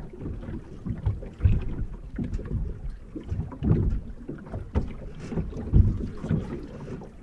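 Small waves lapping and sloshing around a camera held at the sea surface. The sound comes in irregular low, rumbling surges with small splashes and some wind on the microphone.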